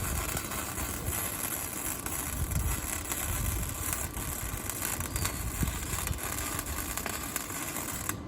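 Flux-core wire-feed welding arc crackling steadily, cutting off abruptly near the end.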